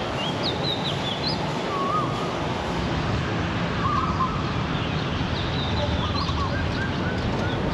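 Steady outdoor background noise with short, warbling animal chirps repeating at irregular intervals, some high and some lower.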